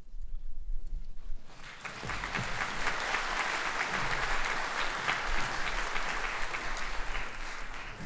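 Concert audience applauding at the end of the piece: after a low rumble, the clapping swells in about a second and a half in and then holds steady.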